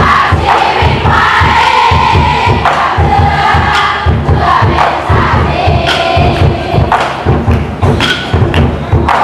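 A large group of voices chanting and singing together in unison over a steady drum beat, as a cheering crowd does.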